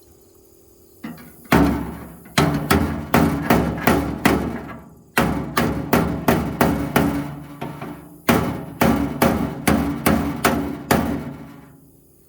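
Three runs of rapid, hard blows on the toolbox's metal shelf, about three a second, each blow ringing briefly, as the bent shelf is beaten back into shape.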